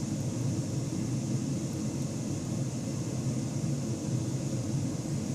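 Steady low background hum with no distinct events, of the kind an air conditioner or fan makes in a room.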